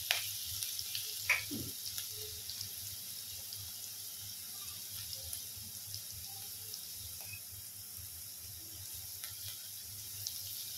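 Chopped green chillies, mustard seeds and cumin frying in hot oil in a kadhai: a steady sizzle with scattered small crackles.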